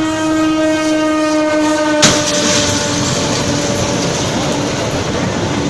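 Train horn sounding one steady tone, cut by a loud crash about two seconds in as the train strikes an excavator at a level crossing. After that comes dense noise of the train running on, with the horn still sounding in broken stretches.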